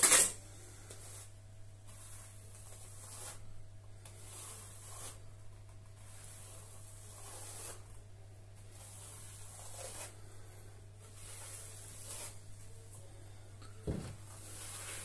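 Steel plastering trowel scraping base-coat plaster across a wall in repeated strokes, roughly one every second or so, with a louder scrape right at the start and a single knock near the end.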